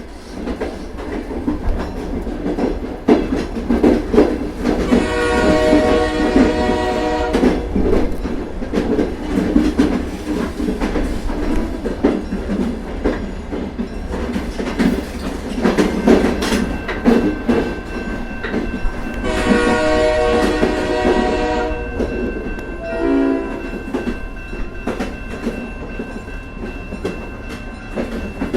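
Train running on the rails with a steady rumble and wheel clatter. Its horn sounds in two blasts of about two seconds each, around five and twenty seconds in, then a shorter blast a little later.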